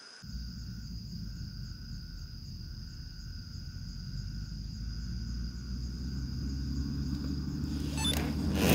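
Crickets trilling steadily over a low rumble that sets in just after the start and swells gradually louder, with a few sharp clicks near the end.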